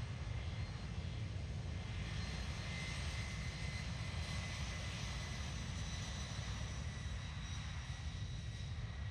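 Jet airliner engines running, a steady rumble with a faint high whine.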